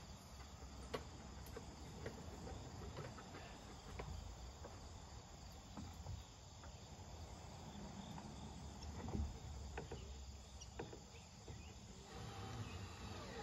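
Crickets chirping steadily in the background, with scattered light knocks and taps from work on the wooden dog shelter. Near the end a wavering, gliding sound begins.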